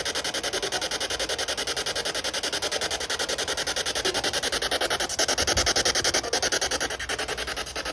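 Ghost-box (spirit box) radio sweep: a loud, harsh hiss of radio static chopped into rapid, even pulses many times a second as the device scans through stations.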